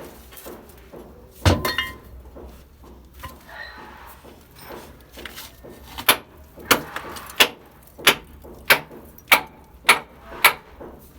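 Hammer blows: a single hard strike, then a steady run of about seven strikes, roughly one and a half a second, each with a short metallic ring.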